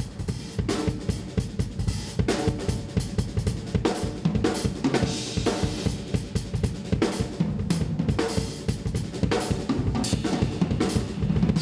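Drum kit being played: a fast, busy pattern of drum and cymbal hits.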